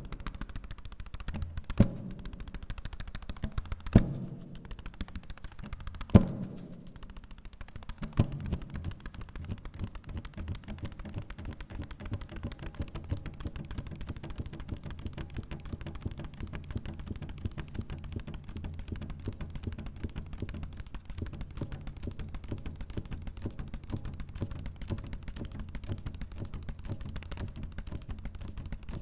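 Paper percussion: four sharp hits about two seconds apart, each with a short ringing tail, then a steady low, grainy rustle of paper being worked.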